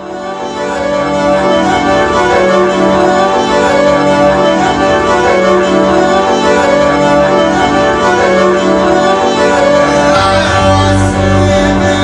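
Live music: sustained, layered instrumental tones swell in over the first couple of seconds and hold steady, with low bass notes coming in about ten seconds in.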